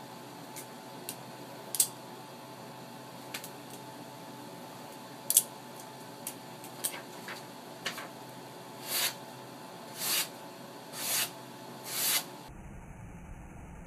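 Benchmade 67 butterfly knife flipped by hand: sharp metal clicks of its handles and latch, scattered irregularly through the first eight seconds. Then four short swishing cuts about a second apart as the blade slices through a sheet of paper.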